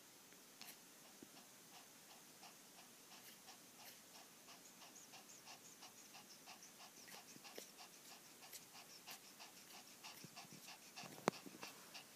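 A sleeping newborn puppy breathing quickly and faintly, about two breaths a second, while twitching in a dream. A single sharp click sounds near the end.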